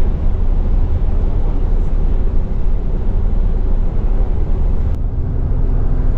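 Engine and running rumble of an old, battered bus heard from inside its cabin, a loud steady low rumble with a faint drone over it. About five seconds in the drone drops a little in pitch.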